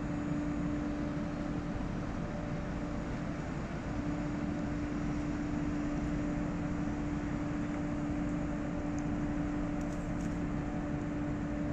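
A ship's engine running steadily: a constant hum with overtones over a low rumble and an even wash of noise, as heard on deck aboard the vessel.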